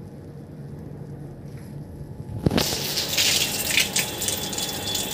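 Water gushing and splashing onto plastic chairs and a concrete roof, starting suddenly about two and a half seconds in, from a rooftop water tank that is overflowing. Before it, a low steady hum.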